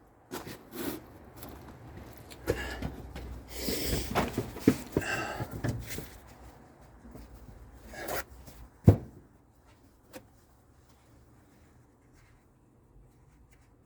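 Hand tools and metal parts being handled and worked, rubbing and clicking, with a sharp knock about nine seconds in, then quiet.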